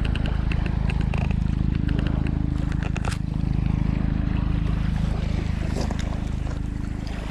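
Steady low engine drone with a few sharp clicks over it.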